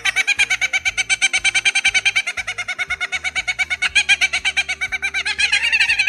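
Laughing kookaburra calling: a long run of rapid, evenly repeated chuckling notes, growing louder near the end.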